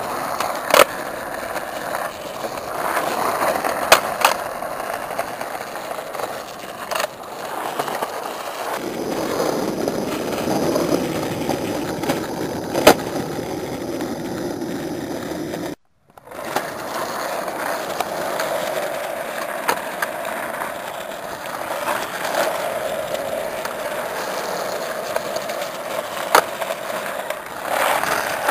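Skateboard wheels rolling on concrete, with a sharp clack of the board hitting the ground every few seconds. The sound cuts out for a moment about halfway through.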